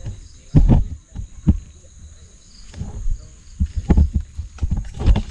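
Irregular low thumps, knocks and scrapes of a person scrambling up a tree trunk, the body-worn camera jolting and knocking as he climbs.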